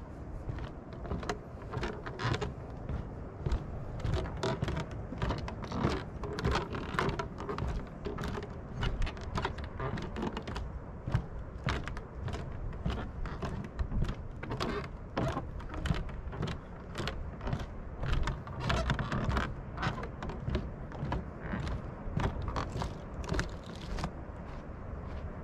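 Footsteps on a wooden boardwalk, about two knocks a second, over a steady low rumble.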